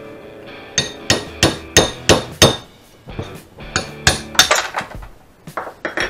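Hammer blows on a first-gen Toyota Tacoma's front steering knuckle, knocking off the old hub seal. Sharp strikes come about three a second in two runs, with a short pause about three seconds in.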